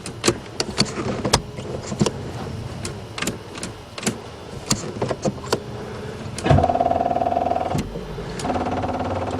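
Buick Regal being tried on a battery too weak to start it: a run of scattered clicks, then two short, steady electric whirs from the starter about a second apart.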